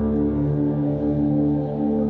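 Background music: calm, sustained ambient tones with no beat.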